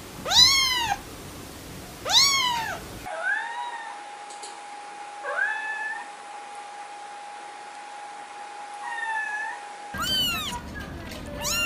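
Kittens mewing, two loud high-pitched mews in the first two seconds. A cat then gives three quieter meows a couple of seconds apart over a steady faint tone. Kittens mew again near the end.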